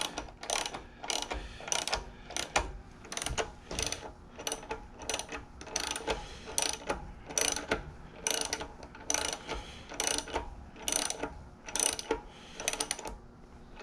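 Socket ratchet wrench clicking in short bursts about twice a second, each back-stroke ratcheting while a thread-chasing tool is worked through the vise's damaged threads against light resistance.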